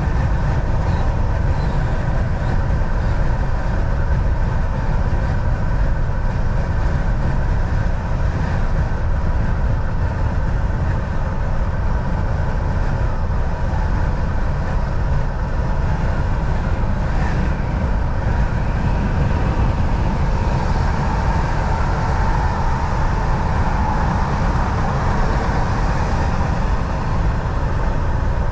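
Semi truck driving at road speed: a steady low rumble of engine and road noise. A brighter hiss swells for several seconds about two-thirds of the way through.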